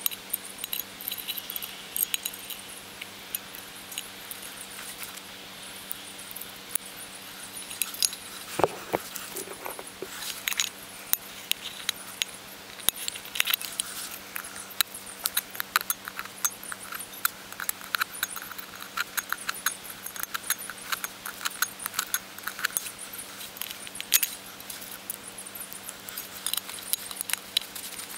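Multi-tool can opener cutting through the wall of a tin can: many quick metallic clicks and scrapes as the blade is worked along the tin, sped up.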